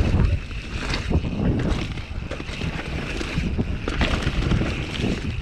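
Wind buffeting a chest-mounted action-camera microphone as a mountain bike runs down a dirt forest trail, with tyre noise on the loose dirt and a few short clacks from the bike.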